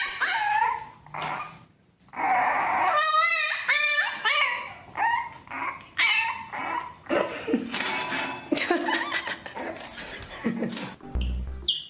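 French bulldog puppy yapping and whining over and over in short high calls, some wavering in pitch about three seconds in. A dull low thud near the end.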